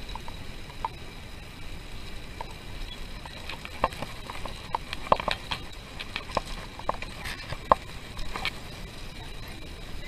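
Bicycle riding noise: a steady rush of wind and tyre noise with a faint high whine, and a scatter of short clicks and rattles, busiest in the middle.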